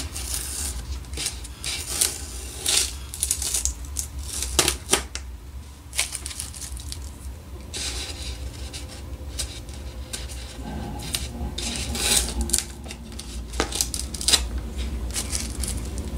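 Blue painter's tape being peeled off a painted foam RC seaplane float: short irregular rips and crinkles of the tape, some sharper than others, over a steady low hum.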